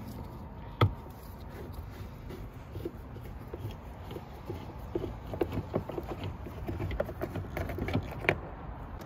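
Screwdriver and metal tool clicking, tapping and scraping against the plastic door trim panel of a VW Golf Mk6 while it is worked loose. There is a sharp click about a second in, a run of small quick clicks and taps in the second half, and another sharp click near the end.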